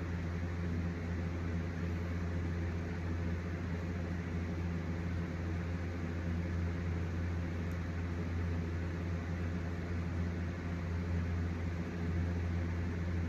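Steady low electric motor hum with even overtones and a constant hiss, unchanging throughout.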